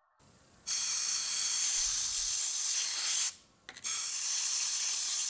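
Compressed-air blow gun hissing in two long blasts with a short break a little past halfway, blowing metal chips out of a partly tapped thread hole to stop them binding the tap.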